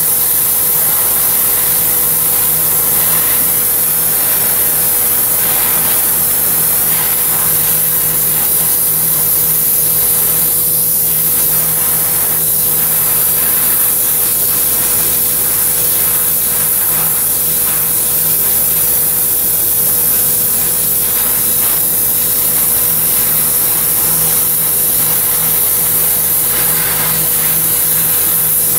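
Oxy-acetylene torch flame hissing steadily while brazing build-up onto a worn clutch rod pin hole, over a steady low hum.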